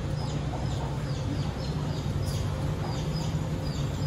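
Birds chirping: many short, high, falling chirps, several a second, over a steady low hum.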